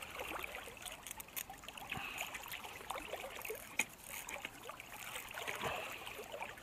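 Moving river water splashing and trickling close by, with small splashes and ticks as a small smallmouth bass is handled and unhooked from a topwater lure. One sharper click about four seconds in.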